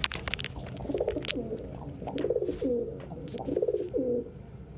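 Domestic pigeon cooing: about four low, rolling coos, each ending in a falling note. Sharp clicks and rustling come in the first second.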